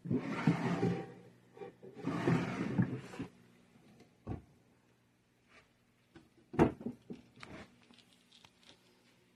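Assembled wooden storage cabinet being handled: two sliding, rustling scrapes of about a second each, then a few scattered knocks and clicks, one sharper knock in the middle.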